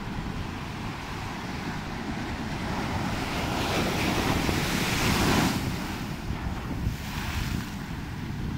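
Ocean surf breaking and washing up the beach: one wave's rush swells to a peak about four to five seconds in and falls away, with a smaller wash near the end. Wind buffets the microphone throughout.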